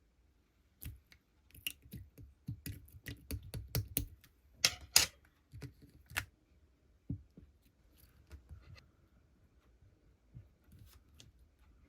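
Clear light-purple slime being handled and squished, making a quick run of sharp sticky clicks and pops, loudest about five seconds in, then fewer and fainter.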